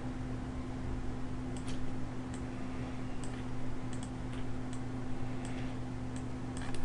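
Scattered, irregular clicks of a computer mouse and keyboard, about two a second, over a steady low hum.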